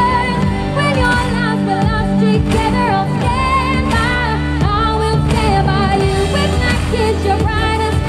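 Female pop singer singing a melody with wavering held notes into a microphone over a pop backing track, played through stage speakers.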